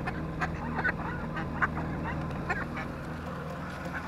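Hen mallard decoy ducks in a crate quacking, a run of short calls, over the steady low drone of the boat's outboard motor.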